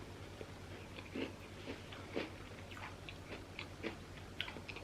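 A person chewing a mouthful of freshly baked apple crumble, with soft, irregular crunches and small mouth sounds.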